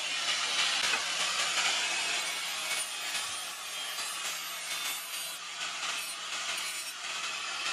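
Electric angle grinder with an abrasive disc grinding the steel of a forged sword blade: a steady grinding hiss over a low, even motor hum.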